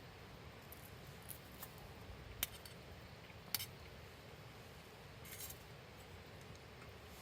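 Two sharp clicks about a second apart, then a brief soft rustle, over a low steady background.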